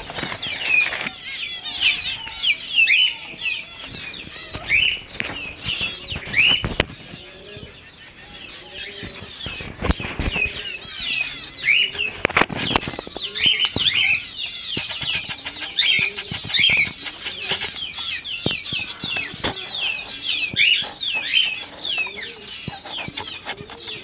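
A flock of rose-ringed parakeets calling with many short, quick chirps and squawks throughout while they feed, broken by a few brief sharp noises, the strongest about ten and twelve seconds in.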